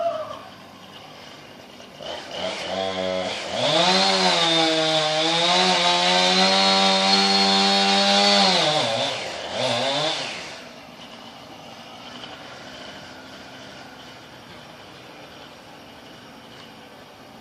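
Chainsaw revving up about two seconds in and running at full throttle for about five seconds. The engine then drops off, gives one more short rev, and falls quiet.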